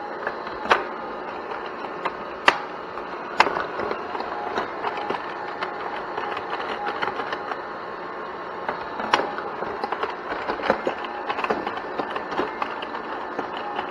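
Toy tabletop pinball machine in play: the steel ball rolling and rattling steadily over the plastic playfield, with a handful of sharp plastic clacks from the flippers and bumpers striking it.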